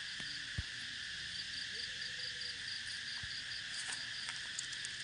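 Cicadas singing in a steady, continuous high buzzing chorus, with a rapid pulsing trill on top. A single sharp click comes about half a second in.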